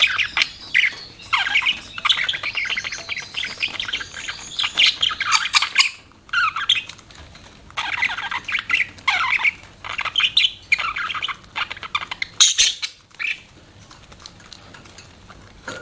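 Budgerigars chirping and chattering in quick, high-pitched calls, with a brief break about six seconds in; the chatter fades near the end.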